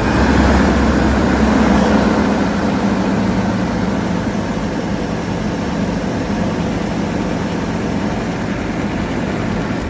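Ford 6.8-litre V10 in a 1997 E350 van idling steadily just after being started, a little louder for the first few seconds and then settling. It runs on freshly replaced spark plugs, and the owner says it idles smoother. It is heard close up with the engine cover off inside the cab.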